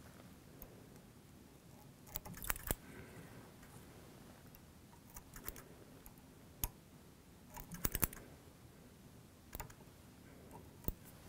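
Fly-tying scissors snipping bucktail fibres against the hook shank to taper them: scattered short, sharp snips, some in quick runs of two or three.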